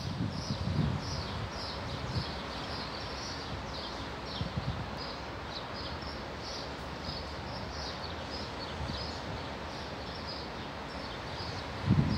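Small birds chirping over and over, two or three short high chirps a second, over a steady outdoor hiss. A low rumble rises near the end.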